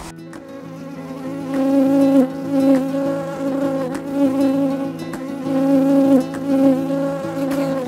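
A flying insect buzzing close to the microphone: a steady drone that swells over the first couple of seconds, its pitch dipping briefly every second or two.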